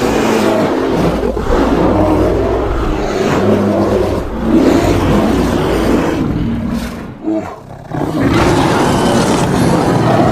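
Creature sound effect built from bear and lion recordings: continuous rough growling roars, breaking off briefly about seven seconds in and then resuming.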